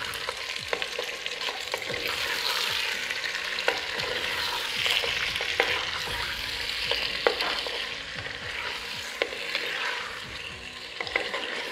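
Sliced potatoes sizzling in hot oil in a clay handi as they are stirred and fried with yogurt and spices, the wooden spoon scraping and now and then knocking against the pot. Steady frying sizzle with scattered short clicks from the spoon.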